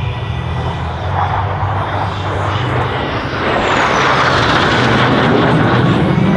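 Thunderbirds F-16 fighter jet passing low: a rushing jet noise that builds from about three seconds in and is loudest near the end, with a high whine falling in pitch as it goes by.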